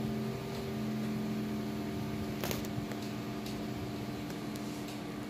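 Corded handheld percussion massager running while pressed against the body: a steady motor hum, with a single click about two and a half seconds in.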